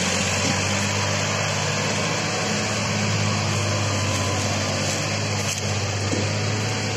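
Farmtrac 65 tractor's diesel engine running steadily under heavy load, pulling a trolley fully loaded with logs.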